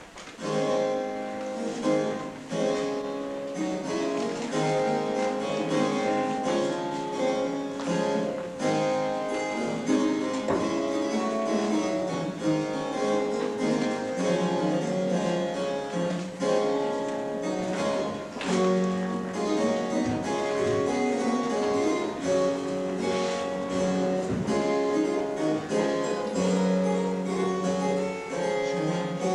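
Instrumental music that starts right at the beginning and carries a steady stream of quick, separate notes throughout.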